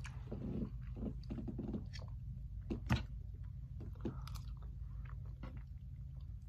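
Close-miked chewing and mouth sounds of a person eating baked chicken and soft cooked vegetables, with a plastic fork scraping and tapping the plate between bites. A sharp click stands out about three seconds in.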